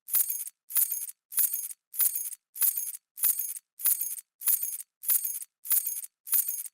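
A bunch of metal keys dropping and jingling: the same short, bright jangle repeated over and over, about one and a half times a second, with dead silence between each.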